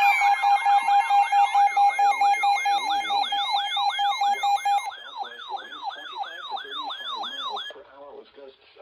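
Electronic emergency alert alarm: a steady attention tone layered with rapidly repeating falling siren sweeps, about two to three a second. The steady tone cuts off about five seconds in, and the sweeps go on more quietly until they stop near the end.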